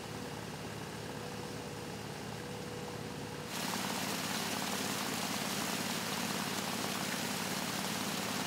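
Engine idling steadily with a low hum; about three and a half seconds in the sound gets louder, with more hiss over the hum.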